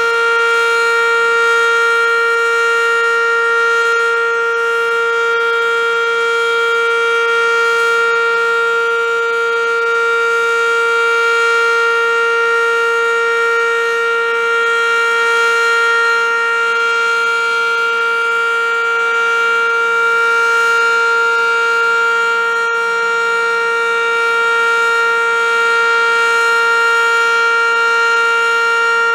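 ASC OM-117 (ACA Banshee) outdoor warning siren sounding a loud, steady tone at an unchanging pitch during its monthly test.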